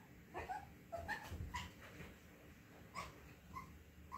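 Small black puppy whining, a string of about six short high-pitched whimpers and yips.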